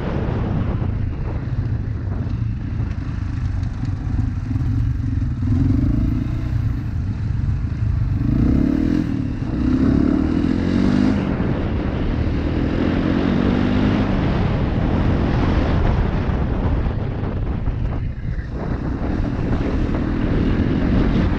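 Dual-sport motorcycle engine running under way, its note climbing and dropping several times as it accelerates and shifts, over a steady low rumble of wind on the microphone.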